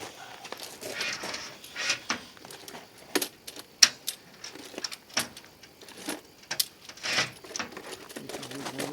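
A dozen or so scattered sharp metallic clinks and taps of metal hardware and tools being handled, with a louder clink about four seconds in.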